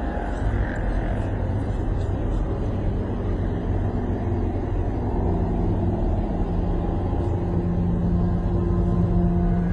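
Steady low rumble of road traffic, with a low sustained droning tone coming in about halfway through and growing stronger.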